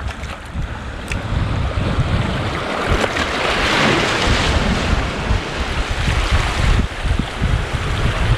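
Sea waves washing over a rocky shore, with wind buffeting the microphone. A larger wash swells about three seconds in and fades out a few seconds later.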